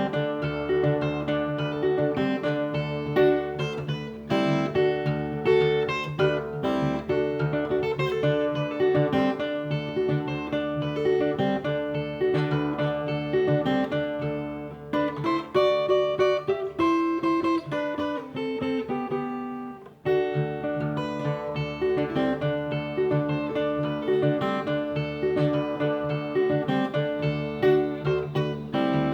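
Nylon-string acoustic guitar (violão) fingerpicked in rio abaixo tuning, imitating the northeastern Brazilian repente viola: low open strings ring steadily under a quick picked melody. About two-thirds in, a falling run of notes leads to a brief break before the picking resumes.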